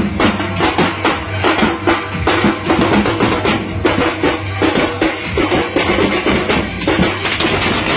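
Teenmaar street drum band beating dappu drums in a fast, dense rhythm.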